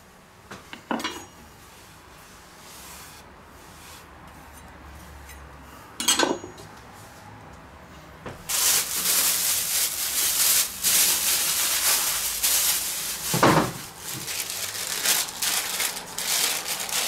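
A kitchen knife knocks on a wooden cutting board with a few clicks. From about halfway there is a loud, irregular crinkling of plastic packaging being handled, with one dull thump in it.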